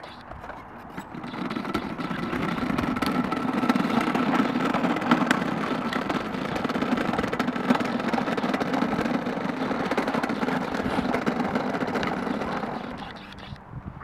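A child's push tricycle's hard wheels rolling and rattling over asphalt, a steady rough rumble that builds up as it gets going and dies away near the end as it stops.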